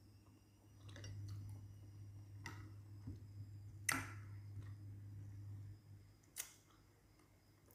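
Quiet eating sounds: a few small clicks, the sharpest about four seconds in, as a metal spoon works in a glass bowl, over a low steady hum.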